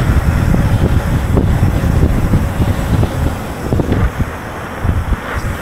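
Wind buffeting the camera's microphone as a mountain bike descends at speed, with the rolling noise of its tyres on wet asphalt; a steady low rumble with no break.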